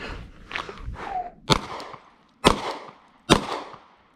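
Rustling as a pistol is drawn from a concealment holster, then three 9mm shots from a Glock 48, a little under a second apart. These are the first three shots of a Dozier drill string.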